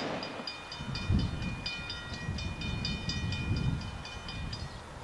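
Railroad crossing bell ringing in rapid, even strokes as a train approaches, starting about half a second in and stopping shortly before the end, over a low rumble.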